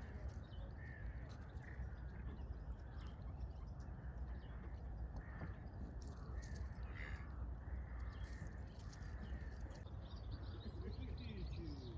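Birds calling in short repeated calls, the plainest about seven seconds in, over a steady low rumble.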